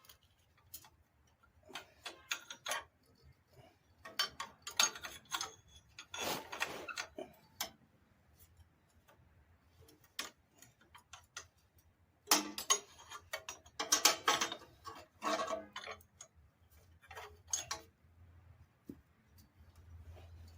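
A wrench loosening a bolt on a riding mower's exhaust: irregular bursts of clicking and metal clinks, the loudest cluster a little past the middle.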